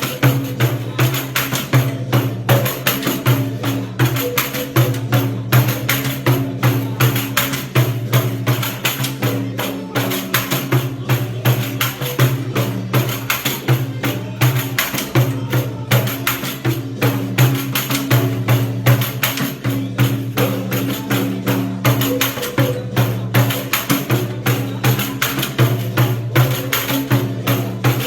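Pandeiro played in a steady, driving rhythm, its jingles ringing bright on every stroke, over the steady low notes of accompanying music.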